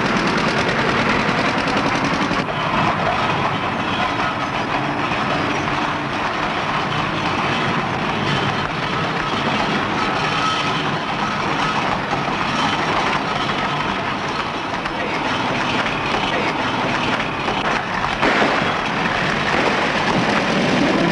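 Steady clattering and rattling of a chase on the move: an early open motor car and a horse-drawn carriage with its wheels on cobblestones. The sound changes abruptly twice, about two and a half seconds in and near the end.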